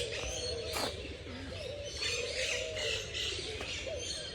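Many birds chirping together, with the low, wavering cooing of pigeons running underneath.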